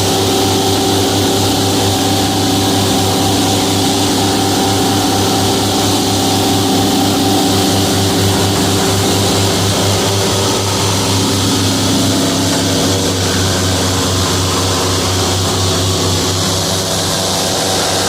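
Airboat's engine and large air propeller running steadily at cruising speed, a loud, even drone with a rushing noise over it.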